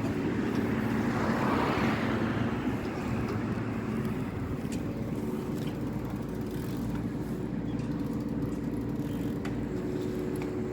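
Road traffic noise: a vehicle passes about one to two seconds in, over a steady low hum.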